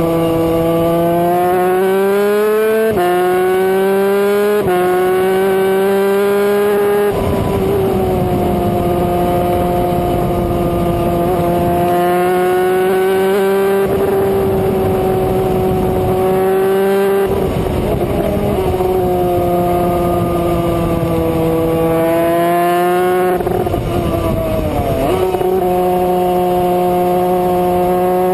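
A 250cc two-stroke superkart engine running hard, heard from onboard. Its pitch climbs with sudden steps about 3 and 5 seconds in, holds high, then falls and climbs again around 23 to 25 seconds in. Rushing noise comes and goes at several points.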